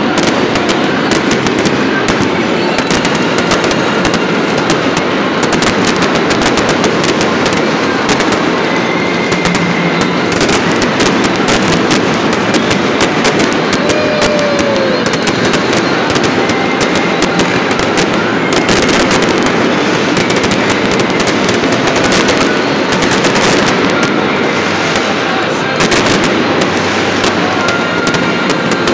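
A large fireworks display going off without pause: a dense, rapid crackle of bangs and pops, loud throughout. A couple of short falling whistles sound within it.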